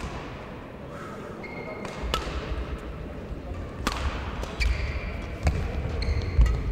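Badminton rally in a large hall: sharp cracks of rackets striking the shuttlecock about every couple of seconds, with short shoe squeaks and heavy footfalls on the court as the players move.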